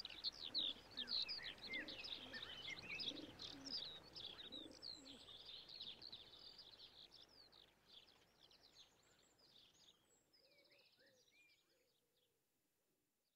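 Many small birds chirping rapidly, with a dove cooing low underneath, the whole fading out slowly.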